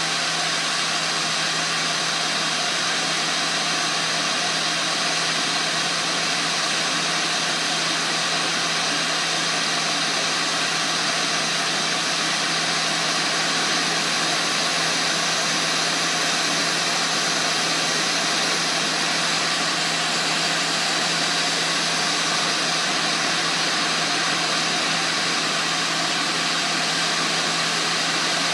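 Hot-air rework gun blowing steadily at medium heat over a BGA chip, reflowing its freshly placed solder balls: an even rushing hiss with a steady low hum underneath.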